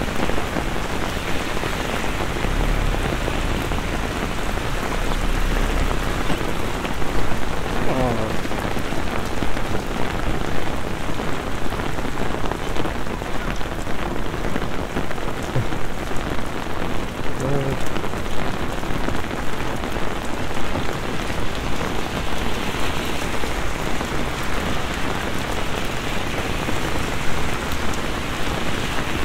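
Heavy downpour falling on paved streets and pavements: a steady, dense hiss of rain.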